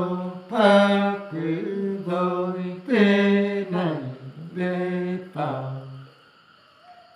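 A man singing unaccompanied, in long held notes that slide between pitches, in several drawn-out phrases. The singing stops about six seconds in.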